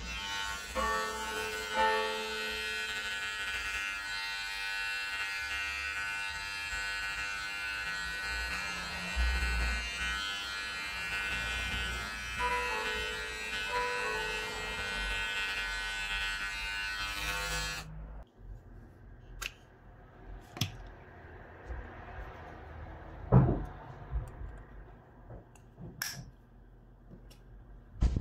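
KEMEI electric hair clipper running with a steady buzz while cutting hair, then switched off abruptly about 18 seconds in. After that come scattered clicks and one louder knock as the clipper and its plastic guide combs are handled.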